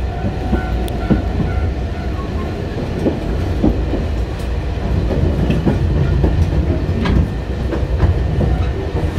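Sangi Railway Sangi Line train running, heard inside the passenger car: a steady low rumble with irregular clacks of the wheels over rail joints.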